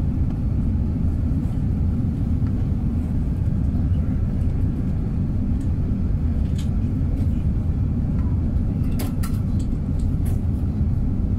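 Steady low drone inside the cabin of an Airbus A380 in flight: engine and airflow noise from its four Rolls-Royce Trent 900 turbofans. A few faint clicks come about nine seconds in.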